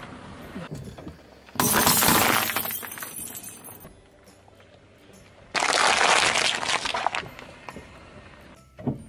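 Two loud crushing bursts under a car tyre. The second, about five and a half seconds in, is a plastic punnet of cherry tomatoes being flattened: the plastic cracking and splitting and the tomatoes bursting. The first, about a second and a half in, fades away over about two seconds.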